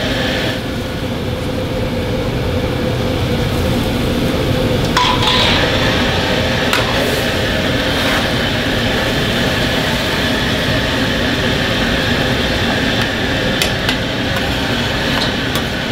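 Jajang sauce of onions and cabbage cooking in a wok over a high flame, with a steady hum from the range. A ladle stirs and clinks against the wok a few times.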